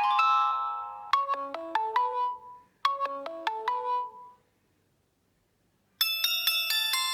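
Samsung Galaxy Note 3 Neo ringtones: the tail of one tune fades out, then a short chiming phrase of a few notes plays twice. After a brief pause, a new, busier ringtone starts about six seconds in.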